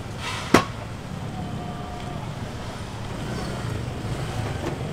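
Steady low rumble of street traffic, with wind buffeting the microphone. There is one sharp click about half a second in.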